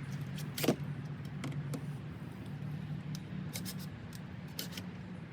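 A steady low hum, like a motor vehicle running, with scattered light clicks and a sharper knock about a second in.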